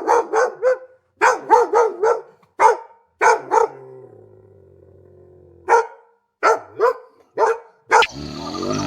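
Dog barking repeatedly in short runs of two to four barks with brief pauses between, about fifteen barks in all.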